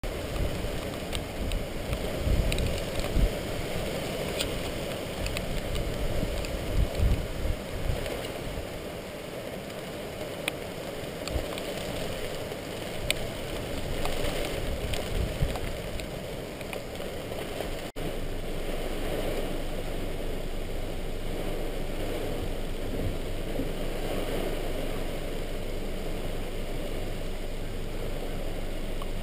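Hurricane wind and rain. Strong gusts buffet the microphone with irregular low rumbles over the first several seconds. After a cut about 18 seconds in, a steadier, even rush of wind and rain takes over.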